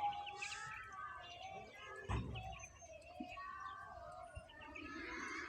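Several small birds chirping and twittering over one another, with a single low thud about two seconds in.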